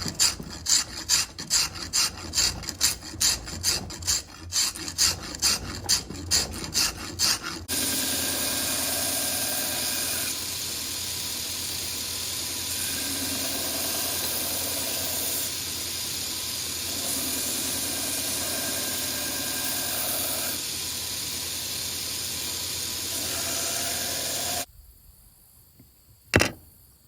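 Sanding the wooden handle of a meat cleaver. First come quick back-and-forth scraping strokes, a little over two a second, for several seconds. Then a steady, continuous sanding noise runs and cuts off suddenly, followed by a single click.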